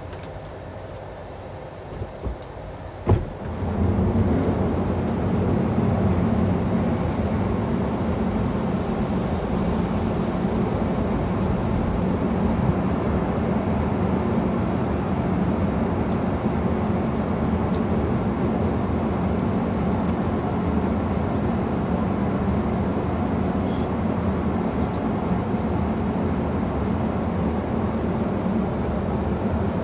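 Airbus A220-300 touching down, heard from the cockpit: a couple of light knocks, then a sharp thud about three seconds in as the wheels meet the runway. It is followed by a much louder steady rush of reverse thrust and runway rumble that holds through the rollout.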